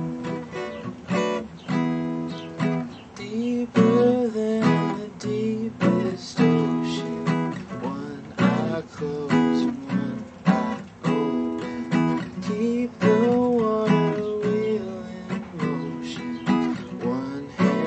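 Acoustic guitar strummed, chords played in a steady rhythm.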